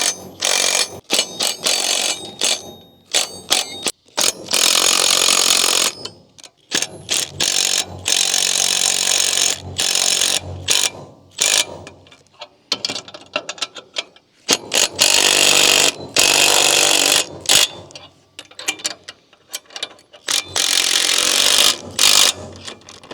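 Ratchet wrench with a 19 mm socket tightening the trailer jack's bracket bolts, its pawl clicking rapidly in repeated strokes of a second or two with short pauses between.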